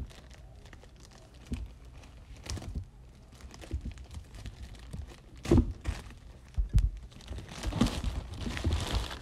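Plastic courier mailer bag crinkling as it is handled and torn open, with a couple of dull knocks about halfway through and denser crinkling near the end.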